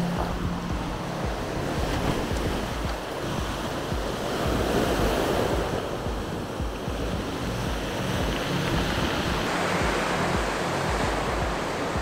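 Sea surf washing in over a rocky pebble shore, a steady rushing wash that swells and eases, with wind buffeting the microphone.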